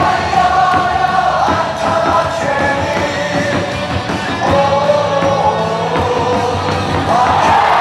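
Baseball cheer-song music in a stadium, sung along by the crowd in held melodic notes over a steady beat.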